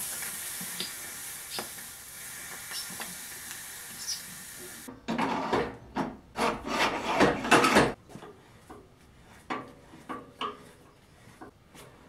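Metalwork at a freshly welded joint on a steel frame. A steady hiss with a few faint ticks runs for about five seconds, then about three seconds of loud, rough scraping and rasping on the metal, then a few scattered light knocks.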